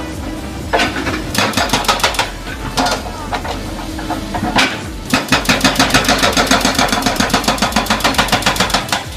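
Hydraulic hammer breaker on a backhoe excavator pounding in rapid runs of blows, several a second, over the machine's steady engine hum. A short run about a second in and a longer one from about five seconds in to near the end.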